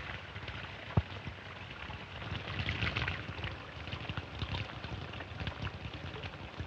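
Water splashing and lapping as men drink from open water, with one sharp click about a second in.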